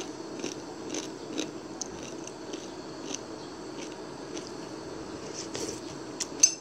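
A pot of soup simmering: a steady low bubbling with small irregular pops, and a couple of sharper clicks near the end.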